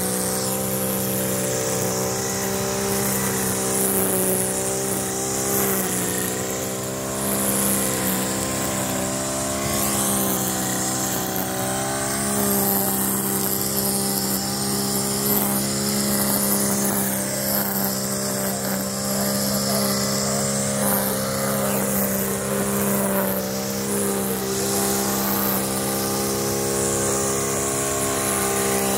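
Shoulder-harness brush cutter's small petrol engine running at a steady high speed while its metal blade cuts lawn grass, the pitch holding nearly level with small dips.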